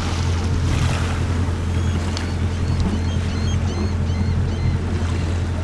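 A sailboat under way with its engine running as a steady low drone, water rushing past the hull and wind on the microphone. From about two seconds in, a run of short high chirps repeats several times.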